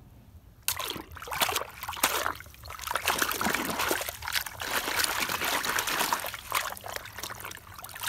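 Fast-flowing water rushing and splashing around a toy bus held in the current to wash the mud off. It starts abruptly under a second in and surges unevenly with many small splashes.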